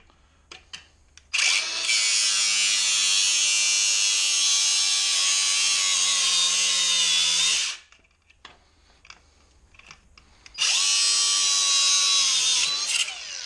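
Angle grinder cutting metal in two runs: a long cut of about six seconds starting just over a second in, then a shorter cut of about two and a half seconds near the end. The motor's whine winds down after each.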